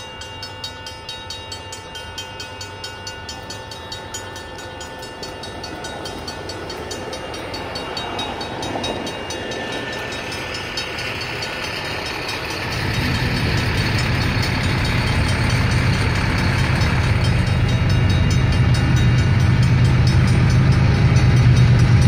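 Railroad crossing bells ringing in a fast, even beat: a Safetran Type 1 electronic bell and a Griswold mechanical bell, sounding while the crossing is active and the gates lower. About 13 seconds in, a low rumble from the approaching diesel locomotives comes in under the bells and grows louder to the end.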